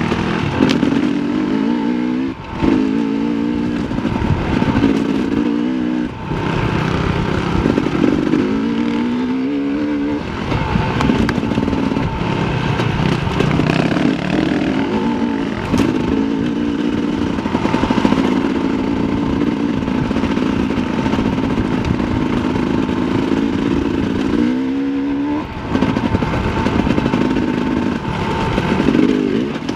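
Sherco 300 SE Factory two-stroke enduro motorcycle engine being ridden hard on dirt single track, its note climbing and falling with the throttle. Three times it drops off briefly, about two seconds in, about six seconds in and near the end, then revs back up.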